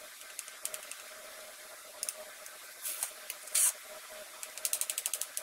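Kitchen knife cutting through a stacked sandwich of soft white bread and mashed potato filling, the blade scraping against a plastic tray. Short scratchy strokes, two longer rasps in the middle, the second the loudest, then a quick run of sawing strokes near the end.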